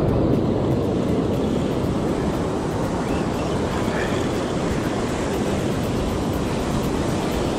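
Breaking surf and foamy wash swirling in the shallows, with wind buffeting the microphone: a steady rushing noise.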